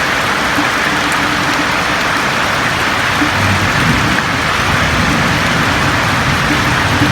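Steady rain falling on a roof, an even dense hiss, with a low rumble underneath from about halfway through.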